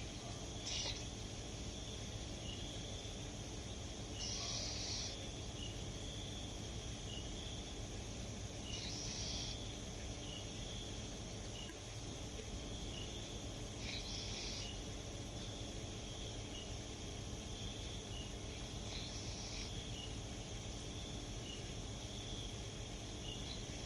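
A sleeping Japanese Spitz snoring: a short, hissy snore about every five seconds, over a steady high chirping in the background.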